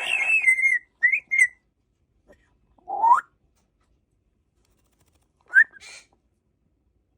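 African grey parrot whistling in short separate calls. A long falling whistle ends less than a second in and is followed by two quick chirps. A rising whistle comes about three seconds in, and a short whistle with a brief rasp comes later.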